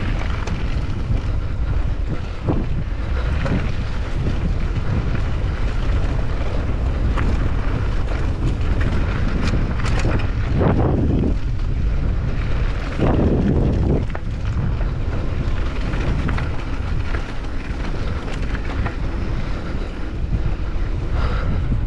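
Heavy wind buffeting on a GoPro Hero10 Black's microphone while riding along a bumpy dirt road. It is a steady rumble, with a few short knocks from the road and two louder swells about halfway through.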